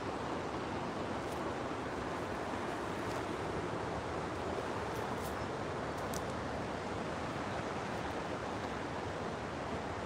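River water flowing, a steady, even rushing noise that does not change. A few faint ticks sound about five and six seconds in.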